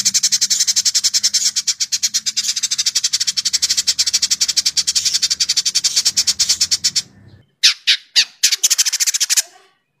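Village indigobird giving its dense, rapid chattering song ('crecetan'): a fast, unbroken run of sharp, high clicking notes that breaks off about seven seconds in. A few shorter chatter bursts follow.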